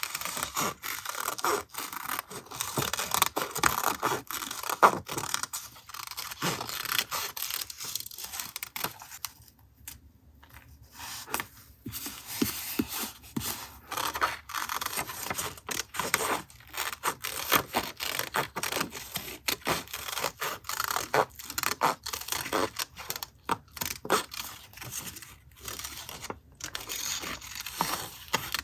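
Paper and craft materials handled while a journal collage is made: rustling, scraping and rubbing with many small clicks and taps, easing off briefly about ten seconds in.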